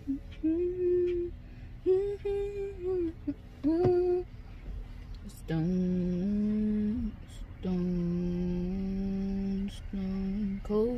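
A woman humming a slow melody in long held notes, sliding up into some of them, in a small room.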